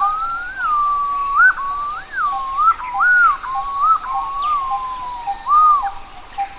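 Yellow-footed green pigeon calling: a continuous run of mellow whistled notes that swoop up and down in pitch, fading out near the end.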